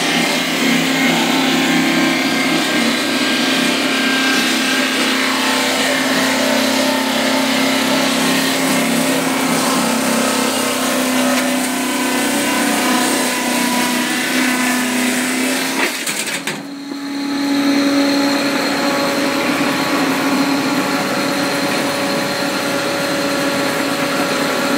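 Wood sawdust-making machine running steadily: a loud rushing noise with a steady hum over it. About sixteen seconds in the sound dips briefly, then carries on with a slightly different hum.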